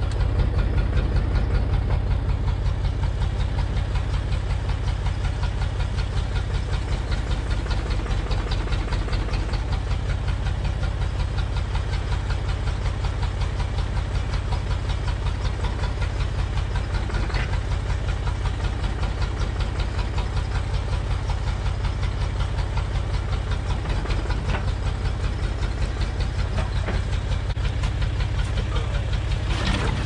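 Old Massey Ferguson backhoe's engine running steadily with a rapid, even beat.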